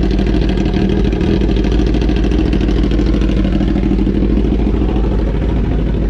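Big motorcycle engine running steadily, a loud, even rumble without revving.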